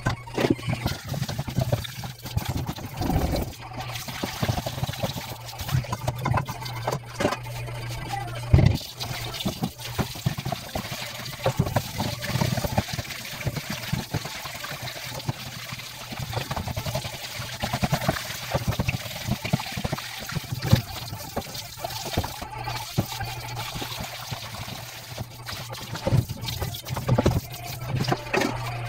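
Tap water running and splashing into a stainless steel sink while a metal bowl is rinsed and scrubbed by hand, with frequent clanks and knocks of metal on metal.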